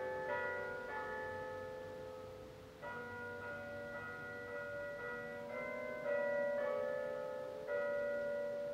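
Slow background music of ringing bell tones, with new notes struck every second or few and left to fade.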